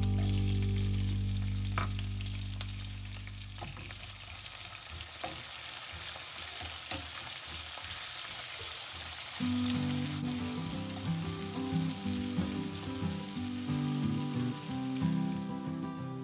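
Chopped onions sizzling as they fry in hot oil with a tempering of peanuts, dal and chillies, and are stirred in the pan. Background music fades out in the first few seconds and comes back about halfway through.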